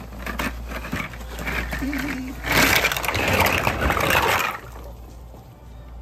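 Dry jumbo pasta shells rattling in their cardboard box, then poured out in a rush of about two seconds, clattering and splashing into a pot of boiling water. The water goes on bubbling quietly afterwards.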